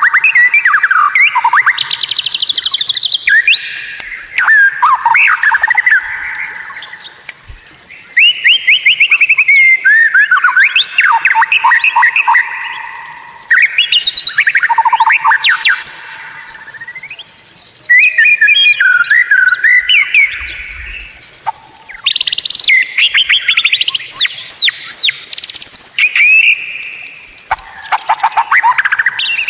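White-rumped shama (murai batu) singing loudly in rapid, varied phrases of trills, sweeping whistles and chattering notes, in bursts of a few seconds broken by short pauses.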